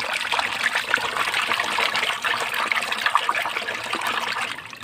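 Water sloshing and splashing in a shallow plastic tub as a hand swishes and scrubs a toy vehicle through it, a busy run of small splashes that eases off near the end.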